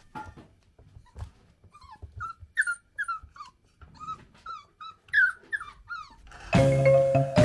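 Kooikerhondje puppy whining: a quick run of short, high whimpers, each falling in pitch, about three a second. Marimba music comes in loudly near the end.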